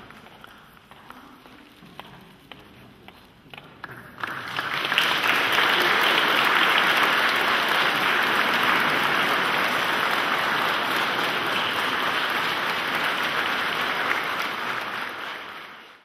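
Congregation applauding. Scattered claps at first, then loud, steady applause from about four seconds in that fades away near the end.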